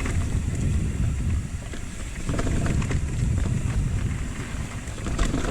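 Wind rumbling on the camera microphone, with tyre and trail noise from an Orbea Wild FS electric mountain bike riding rough singletrack. Short rattles and clatters come at bumps, a cluster about two seconds in and more near the end.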